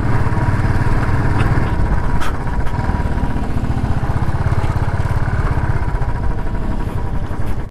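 Royal Enfield single-cylinder motorcycle engine running steadily at low revs while riding over a rough dirt track, heard from the rider's seat, with wind and road noise.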